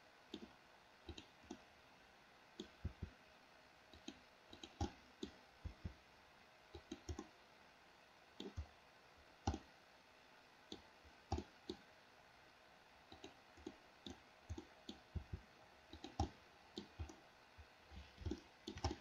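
Faint, irregular clicking of a computer mouse and keyboard keys: single and paired clicks scattered a fraction of a second to about a second apart.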